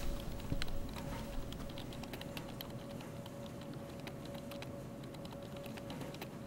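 Office ambience of computer keyboards being typed on: quick, irregular key clicks over a faint steady hum.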